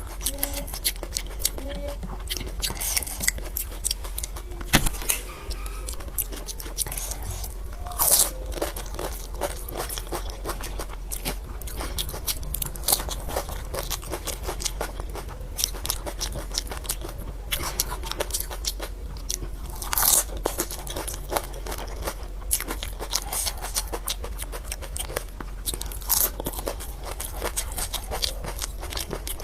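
Close-up crunching and chewing of pani puri: the crisp hollow puri shells crack with irregular crackles, and a few louder bites stand out.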